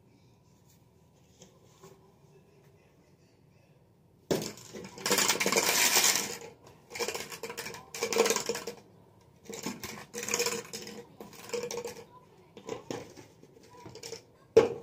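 Empty plastic water bottle crackling in a string of bursts as it is squeezed and twisted in the hands, starting about four seconds in, then a sharp knock as it is set down on the stone countertop near the end.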